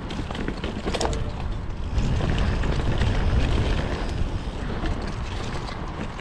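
Wind buffeting an action camera's microphone as a mountain bike rolls along a dirt trail, with tyre rumble and a few sharp rattles about a second in. The rush swells about two seconds in and eases off after about four and a half seconds.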